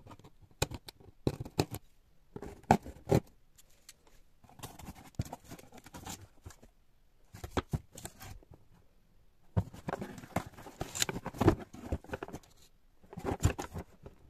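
A cardboard shipping box being opened by hand: the packing tape is slit with a blade, then the flaps and the boxed items inside are handled. It comes in bursts of sharp knocks and clicks, the loudest within the first three seconds, and later stretches of scraping and rustling cardboard.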